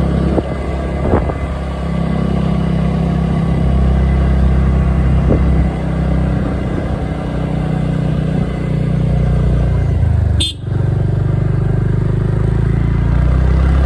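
Scooter engine running at a steady road speed while riding, a continuous low hum that shifts a little in pitch as the throttle changes. It briefly drops away about three quarters of the way through.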